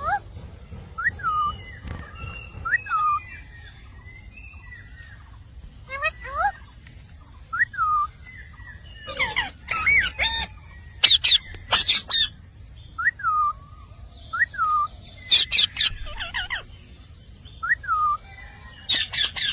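Indian ringneck parrot calling: short whistled chirps repeat every second or two, broken by loud harsh squawks in quick clusters, the loudest in the middle and near the end.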